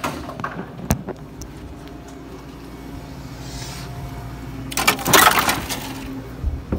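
Handling noise from a phone carried on the move: rubbing and scuffing over a steady low hum, a sharp knock about a second in, and a loud rustling scrape about five seconds in.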